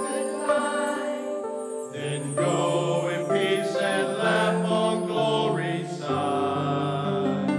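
Church choir anthem with accompaniment: held chords, with a lower bass part coming in about two seconds in.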